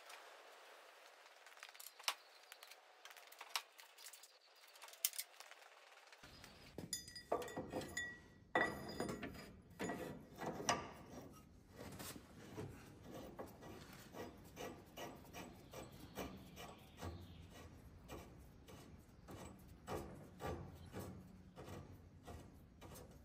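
Hand tools and bolts clicking and knocking on the steel of a tractor's engine mounts and bell housing, in irregular quiet taps that grow busier about six seconds in, with a brief metallic ring about eight seconds in.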